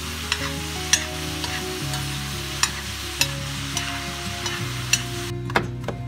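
Food sizzling in a cast-iron skillet while a spoon stirs it, clicking and scraping against the pan every second or so, over soft music with held notes. Near the end the sizzling cuts off and sharp knife taps on a wooden cutting board take over.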